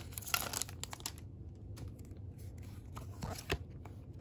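Baseball trading cards being slid and flipped one over another as a stack is gone through: a string of soft, light clicks, with one sharper tick about three and a half seconds in.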